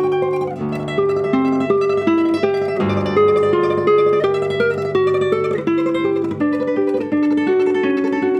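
Solo classical guitar playing a tremolo melody: a high line of rapidly repeated plucked notes over a low sustained bass.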